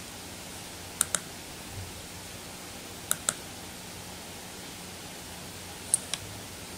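Computer mouse buttons clicking: three pairs of short sharp clicks about two seconds apart, over a steady faint hiss and hum from the recording.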